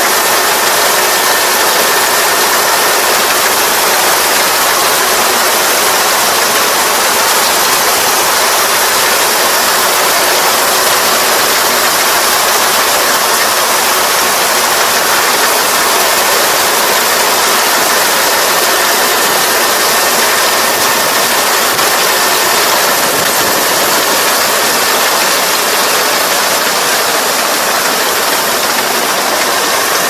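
Rice combine harvester running under load as it cuts and threshes rice, a loud, steady mechanical din with a faint high whine.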